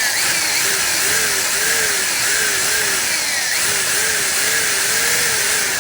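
Electric drill running under load, drilling a starter hole in an amplifier's transistor heat sink. It makes a steady loud whir whose pitch wavers up and down about twice a second.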